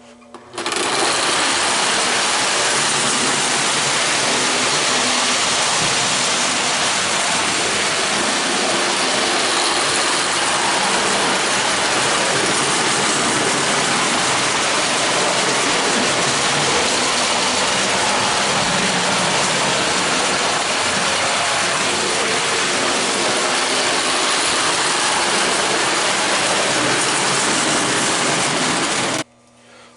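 Marx Commodore Vanderbilt toy train locomotive running in forward: its small electric motor and gears give a steady, loud mechanical whirr and rattle as it pulls a few tin cars along the track. The sound starts abruptly about half a second in and cuts off sharply just before the end, as the power goes on and off.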